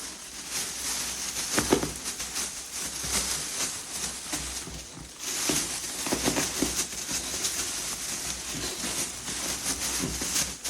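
A miniature pinscher scratching and tearing at the packaging of a new toy: irregular rustling, crinkling and scratching with short clicks.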